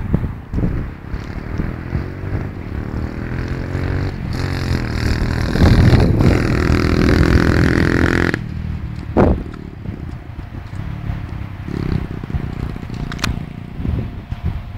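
125cc supermoto motorcycle engine accelerating as it approaches, its pitch climbing and its sound growing loudest from about five to eight seconds in, then stopping abruptly. Low irregular rumble and a couple of short sharp clicks follow.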